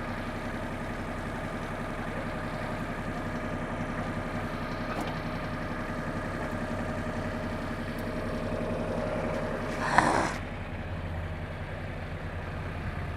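Mahindra Max compact tractor's diesel engine idling steadily while the backhoe is worked into its mounting. About ten seconds in there is a brief loud clunk with a short hiss.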